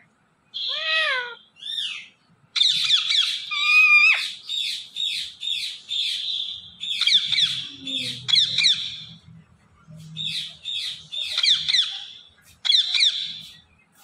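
Indian ringneck parakeet calling: a whistled call that rises and falls, then runs of rapid, high, chattering chirps and squawks in bursts with short gaps.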